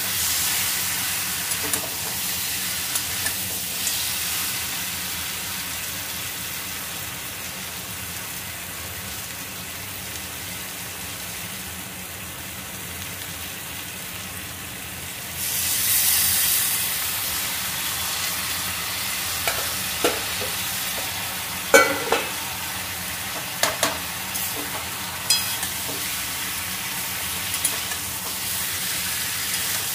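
Chicken pieces and potatoes sizzling in mustard oil in a steel kadai as they are slow-fried in spiced masala (kosha) and stirred with a metal spatula. The sizzle swells about halfway through, and the spatula scrapes and knocks against the pan several times in the second half.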